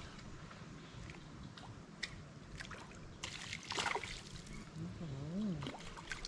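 Water sloshing and splashing with a few small clicks, loudest in a short splash about three and a half seconds in, as a hooked shellcracker (redear sunfish) is brought in to the surface and landed.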